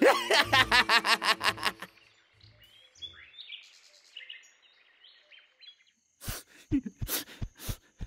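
A cartoon man's laugh for about two seconds, then faint songbird chirps in a forest. Near the end a steady high insect-like tone sets in with several sharp thuds.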